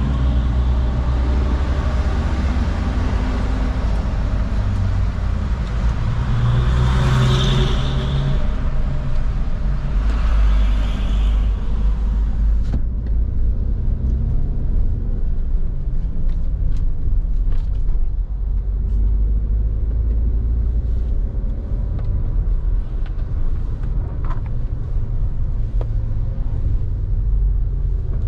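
Road traffic heard from a moving vehicle: a steady low rumble of engine and road. For the first half a loud hiss of traffic swells twice, then cuts off suddenly, leaving the low rumble with a few faint ticks.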